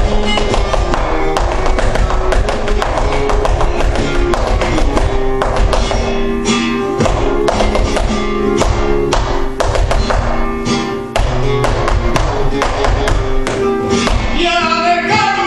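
Flamenco music in the tientos style: acoustic guitar playing with many sharp percussive taps over it, and a singing voice coming in near the end.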